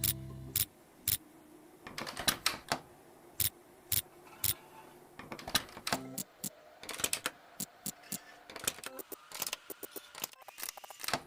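Sharp clicks and clacks, irregular and coming in quick runs that grow denser in the second half, as a locked chest is worked at to get it open.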